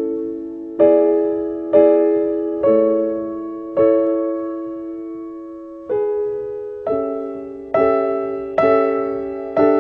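Slow solo piano music: soft chords struck about once a second, each left to ring and fade, with one longer pause midway.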